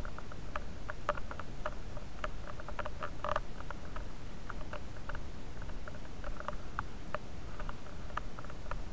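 Rapid, irregular light clicks and scratches close to the microphone, with a denser cluster about three seconds in: handling noise from the moving, body-worn camera and the player's gear.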